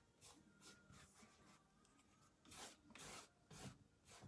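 Faint strokes of a paintbrush laying paint on, several short rubbing scrapes, clearer in the second half.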